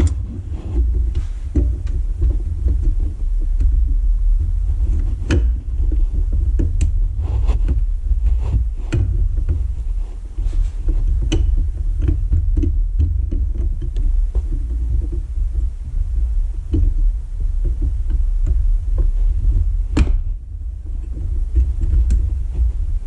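A steady low rumble throughout, with scattered small clicks and taps of hands working on a car's headlight bulb and housing.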